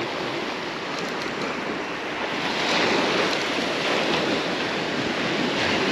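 Surf breaking and washing up a sandy beach, a steady wash of water that swells louder a little before halfway through.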